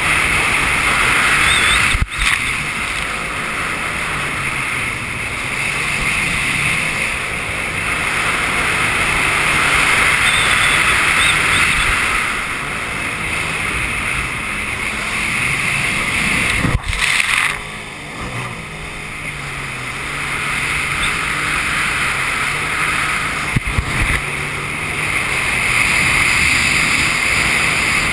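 Jet ski engine running under way at speed, its note rising and falling with the throttle, over the hiss of water spray and wind. The sound breaks off sharply three times, each for a moment.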